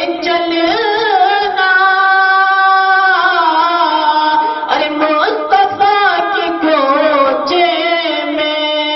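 A man singing a naat (Urdu devotional poem) into a microphone, drawing out long ornamented, wavering notes. He holds one steady note for about a second and a half, a couple of seconds in.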